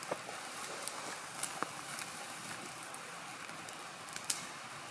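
Smouldering smudge fire of damp green vegetation giving a soft steady hiss, with a few faint scattered pops and crackles.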